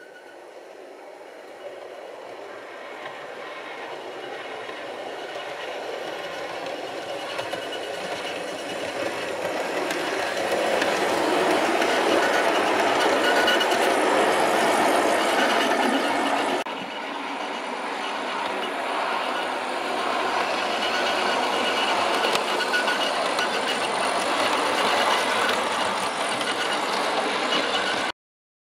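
Rapido OO gauge APT-E model train running along the track, growing louder as it approaches and passes close by. The sound drops abruptly about two-thirds of the way through, then carries on steadily.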